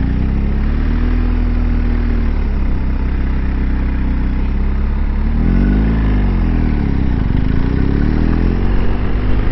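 BMW R1250 GS Adventure's boxer-twin engine running at low road speed. About six seconds in, the revs rise and fall once.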